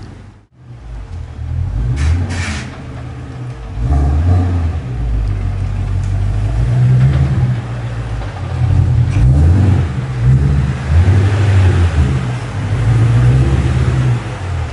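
Ford Shelby GT350's 5.2-litre flat-plane-crank V8, with aftermarket exhaust work, running at low speed, its deep note rising and falling with light throttle.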